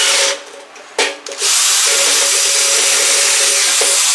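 Electric drill boring a pilot hole into a compressor's metal plate with a twist bit. A short run stops just under a second in; a brief burst follows, then a long steady run with motor whine and the hiss of the bit cutting metal.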